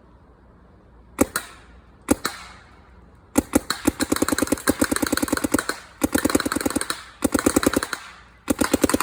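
Planet Eclipse 180R electronic paintball marker firing: two single shots about a second apart, then several rapid strings of shots at about ten a second, broken by short pauses.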